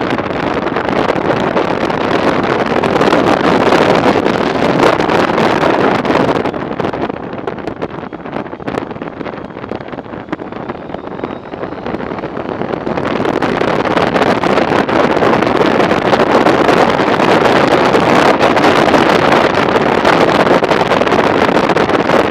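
Wind rush on the camera microphone and the running noise of a Honda ST1300 motorcycle at speed on a winding road. The sound eases off about seven seconds in and builds back up from about thirteen seconds.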